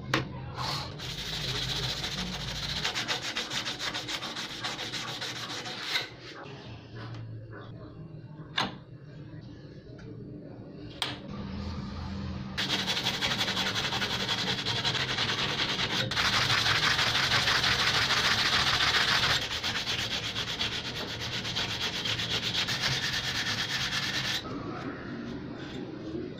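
Sandpaper rubbed by hand over the steel blade of a rusty pruner shear to take off rust, with a few sharp clicks along the way. The rubbing is loudest and most continuous for about twelve seconds in the second half.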